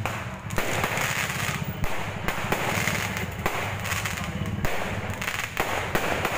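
Aerial fireworks going off overhead: a run of sharp bangs and crackles, about one every second, over a continuous low background din.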